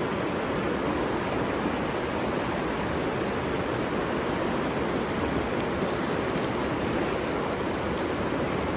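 River water flowing in a steady, even rush, with faint sharp ticks in the second half.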